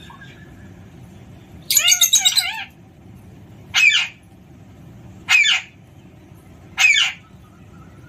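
Alexandrine parakeet calling: one longer, wavering call about two seconds in, then three short loud calls spaced about a second and a half apart.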